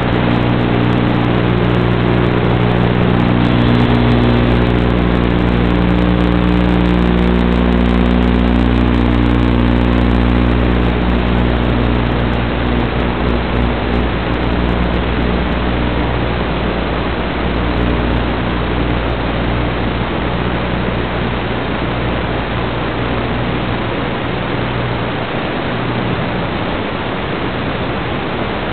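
BetaFPV HX115 quadcopter's motors and propellers buzzing in flight, under a heavy steady hiss. The buzz holds level pitches that shift as the throttle changes, then fades into the hiss over the second half.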